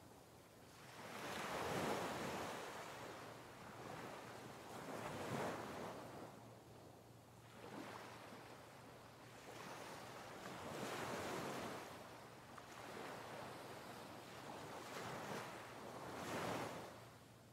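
Ocean waves washing in and receding, each wave a soft rushing surge that swells and fades every few seconds.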